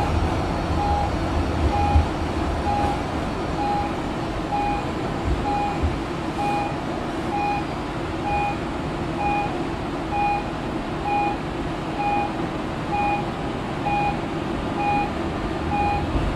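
Interurban tram running along street track, heard from the driver's cab: a steady rumble of motors and wheels, with an electronic beep sounding regularly about once a second.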